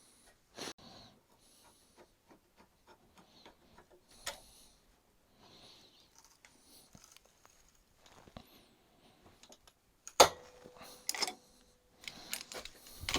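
Metal tools and a steel plate handled on a workbench: scattered light clicks and taps, then a sharp metallic strike about ten seconds in that rings briefly, and more clattering near the end.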